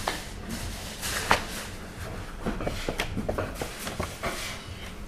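Irregular knocks and clatter of work in a bakery kitchen: a sharp knock about a second in, then a run of quick light clicks and taps over a steady background hum.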